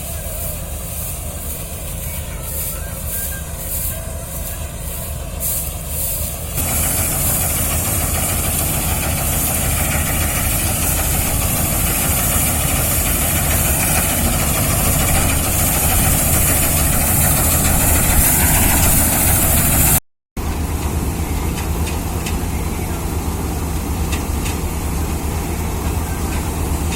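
Engine of a wheat-harvesting machine running steadily with a low hum. About six and a half seconds in, a louder rushing noise joins it and carries on. Just after twenty seconds the sound breaks off for a fraction of a second and then resumes.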